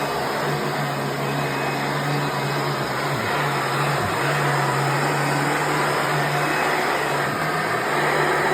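1996 Hoover Preferred soft-bag upright vacuum cleaner running on a rug: a steady motor drone with rushing airflow, its pitch dipping briefly a few times.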